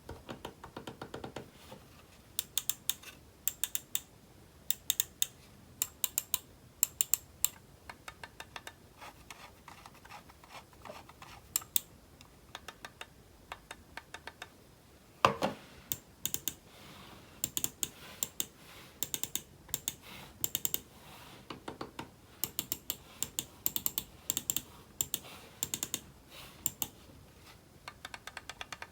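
Typing on a computer keyboard: quick runs of crisp key clicks with short pauses between them, and one heavier, deeper keystroke thud about halfway through.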